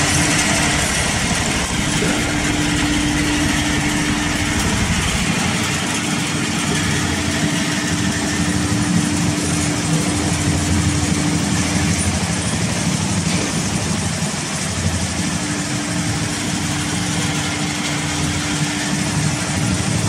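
Vibratory finishing (tumbler) polishing machine running, its bowl of dark tumbling media churning in a steady, dense rush of noise with a low hum from the machine underneath.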